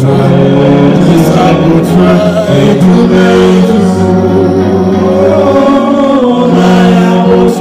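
A man singing solo into a microphone, holding long, sliding notes, with steady low tones sounding underneath.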